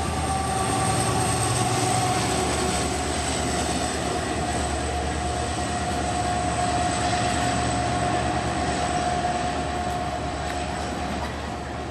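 Twin WDG4 (EMD GT46MAC) diesel-electric locomotives running under load as they haul a freight train. A steady rumble carries a steady whine above it, and it eases off a little near the end.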